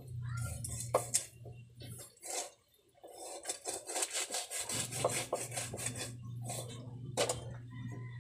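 A large kitchen knife cutting and sawing through a grouper on a wooden chopping block, the blade rasping and scraping, with a few sharp knocks of the blade on the wood about a second in and again near the end.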